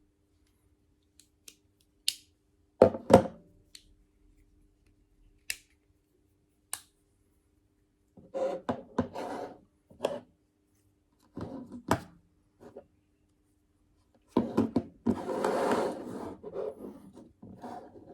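Closed metal multi-tools handled and set down on a table: scattered clicks, a pair of sharp knocks about three seconds in, and bursts of sliding and rubbing as they are lined up, the longest near the end.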